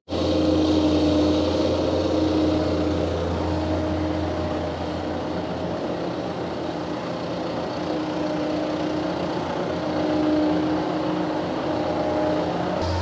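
Tractor engine running steadily, driving a feed mixer wagon as it mixes a batch of mineral feed: a continuous low hum with steady tones over it.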